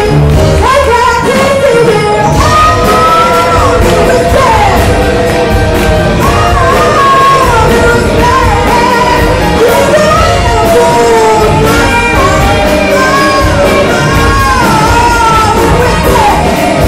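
A female lead vocalist singing into a handheld microphone over a live band with electric guitar.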